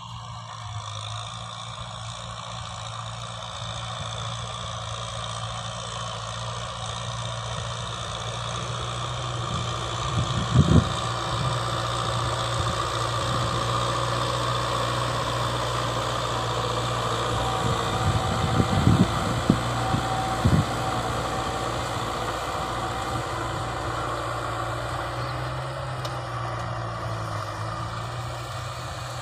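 Kubota M6040 tractor's four-cylinder diesel engine running steadily while it pulls a rotary tiller through the soil, growing louder toward the middle as it comes close. A few low thumps are heard about a third of the way in and again about two-thirds of the way in.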